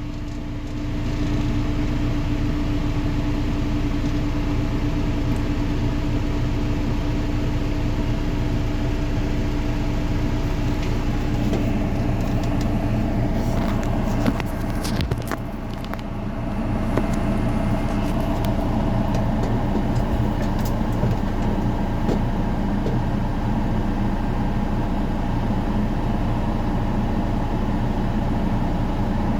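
Diesel engine of farm machinery running steadily under way. A few knocks come just before the middle; the engine then drops briefly and comes back up louder.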